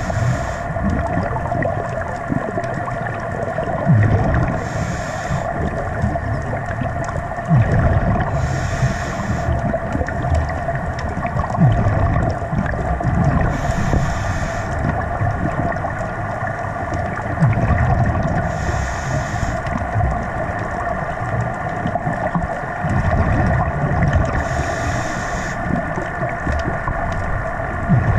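Scuba breathing underwater through a regulator: a hiss on each inhalation every four to five seconds, alternating with the low bubbling rumble of exhaled air, over a steady droning hum.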